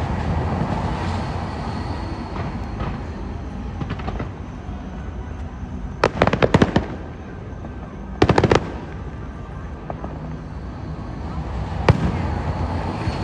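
Fireworks display: a steady rumble of shells bursting, with two clusters of rapid, loud crackling bangs about six and eight seconds in and a single sharp crack near the end.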